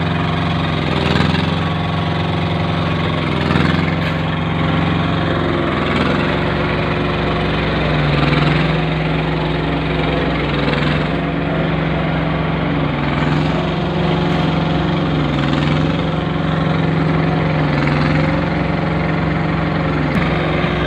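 Small engine of a concrete curb-stone making machine running steadily, its pitch dipping briefly every couple of seconds as it takes load.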